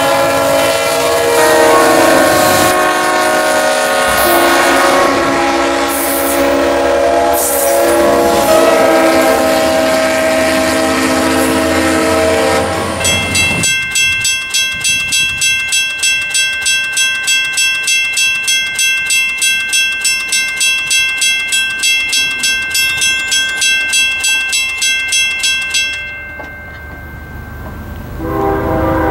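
Diesel locomotive air horns sounding chords of several notes, changing every few seconds. About halfway through, this gives way to a railroad grade-crossing bell ringing about four times a second. The bell stops a few seconds before the end, and a locomotive horn starts up again.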